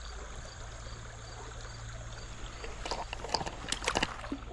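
Creek water running steadily, with an insect chirping faintly in an even rhythm, about two chirps a second. From about three seconds in, a quick run of sharp clicks and knocks.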